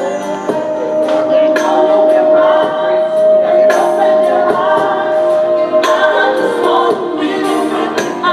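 A song with singing, one sung note held for about five seconds before the melody moves on.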